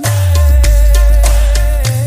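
DJ remix of a Hindi song playing loud, with a deep, heavy bass and a long held melodic note over it; a bass sweep rises in pitch near the end.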